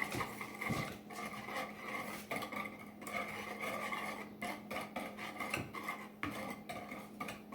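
A utensil clinking and scraping against a mixing bowl as a liquid egg-and-milk mixture is stirred, in irregular taps.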